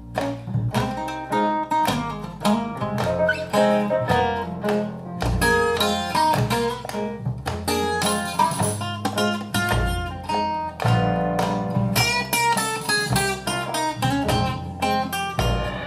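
Guitar-led music with many plucked notes over a low bass line, played back through a pair of OceanWay Audio Eureka stand-mounted speakers.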